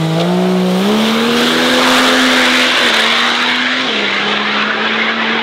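Race vehicle accelerating hard on a drag strip. The engine's pitch climbs over the first second, then holds steady with a slight dip near four seconds, under loud exhaust noise.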